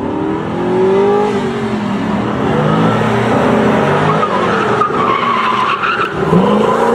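Sports car engine revving hard, its pitch rising and falling, joined by tyres squealing from about four and a half seconds in as the car powers into a slide.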